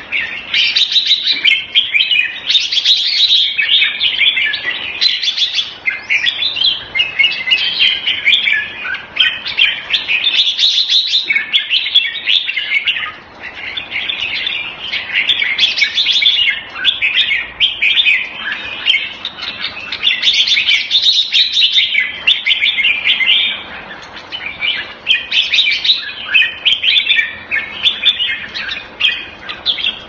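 Red-whiskered bulbul (jambul) singing, a fast, almost unbroken run of loud chirpy, warbling phrases with a couple of brief pauses.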